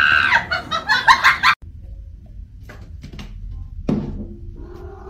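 Loud laughter in quick repeated pulses, which cuts off suddenly about a second and a half in. A quiet stretch follows with a few faint knocks and thuds.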